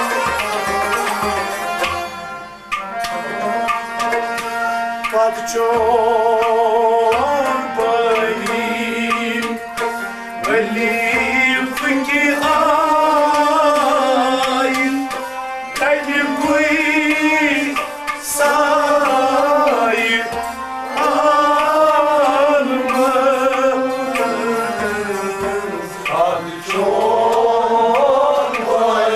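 Live Kashmiri folk music: a sung melody with long held, wavering notes that glide between pitches, over hand-drum strokes.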